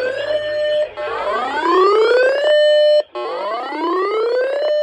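Electronic siren-style alert tone whooping. Each sweep rises steadily in pitch for about a second and a half, holds briefly, then cuts off abruptly, repeating about every two seconds.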